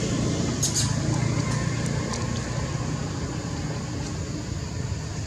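Steady low background rumble, with one brief high-pitched squeak from a baby macaque about a second in.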